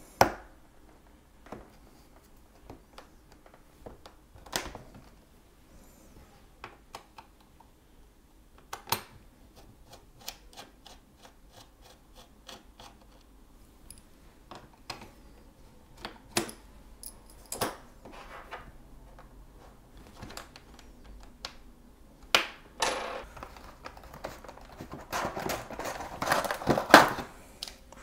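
Plastic clips and a pry tool clicking and snapping as the tight bottom cover of a ThinkPad X1 Carbon Gen 4 laptop is worked off, in many separate sharp clicks and taps. Over the last several seconds come louder, busier rattling and clattering as the panel comes away and the parts inside are handled.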